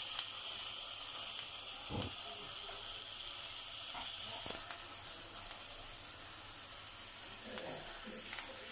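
Steak sizzling steadily as it sears in bubbling butter in a nonstick grill pan, with a few faint soft knocks.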